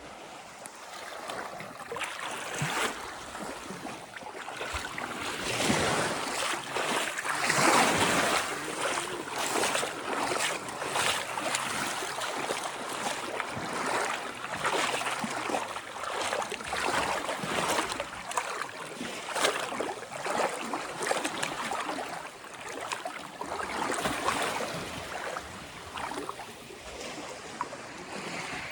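Small sea waves washing onto the shore, swelling and ebbing every few seconds, with a crackle of small clicks through the wash.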